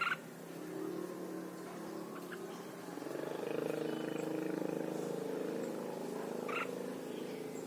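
Two short chirps from a red-whiskered bulbul, one at the start and one near the end. Under them runs a low, steady droning hum that is louder in the middle stretch.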